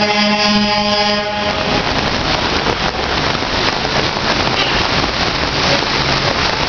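A vehicle horn sounds once, a steady held note for about a second and a half at the start. Under it and after it runs the steady hiss of heavy rain and of traffic driving through floodwater.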